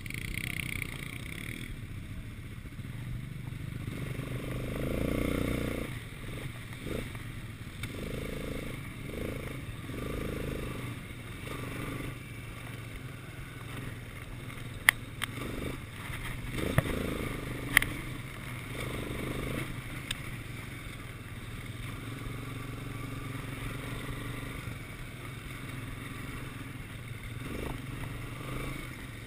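Quad bike (ATV) engine running as it is ridden over a rough dirt track, the engine note rising and falling with the throttle. A few sharp knocks stand out about halfway through.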